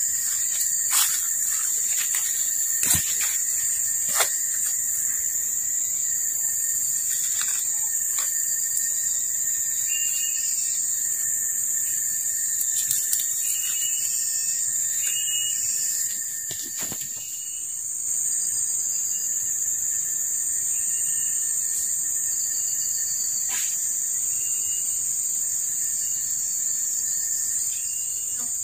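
Forest insects keep up a steady high-pitched buzzing chorus over a fainter, lower steady whine. The buzz dips briefly a little past halfway. A few short repeated chirps and scattered clicks sound over it.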